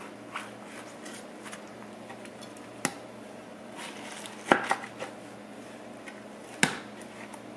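Chef's knife slicing through a peeled pineapple and knocking on a wooden cutting board: a few sharp knocks, the loudest cluster about four and a half seconds in and another near the end.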